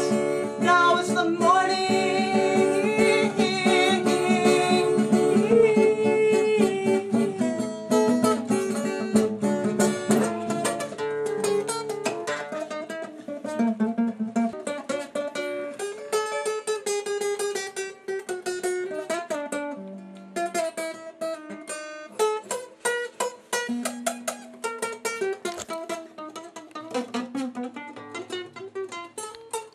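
Acoustic guitar played solo, strummed densely and loudly for the first twelve seconds or so, then quieter with single picked notes.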